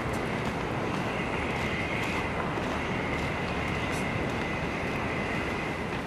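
A motor running steadily with a constant high whine, and faint crunching footsteps in snow.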